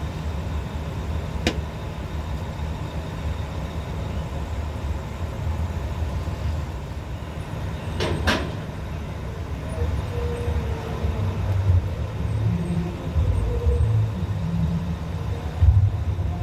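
Heavy engines running at low speed, a low steady rumble, with a sharp knock a second or so in and a quick double knock about halfway through.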